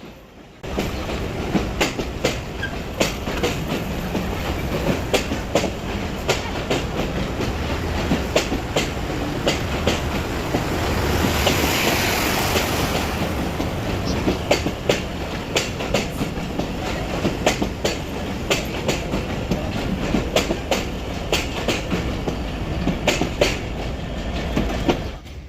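Broad-gauge intercity passenger train rolling past, its wheels clacking over rail joints with many sharp clicks. A louder hissing swell rises and fades around the middle.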